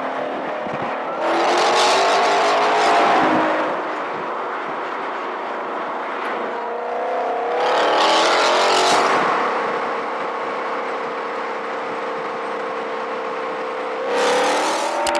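2020 Ford Mustang Shelby GT500's supercharged 5.2-litre V8 exhaust, accelerating on track. It swells loud with a climbing pitch about a second in and again around eight seconds, and holds a steadier drone in between and toward the end.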